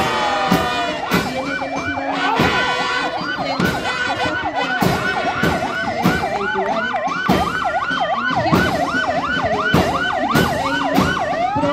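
Fire engine sirens: a slow wail rising and falling, joined about four seconds in by a fast yelp that runs until near the end. A regular thump, like a bass drum, beats about every second and a quarter.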